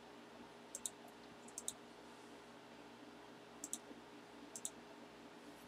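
Computer mouse clicking: several pairs of quick, faint clicks about a second apart, as the view is switched to another camera.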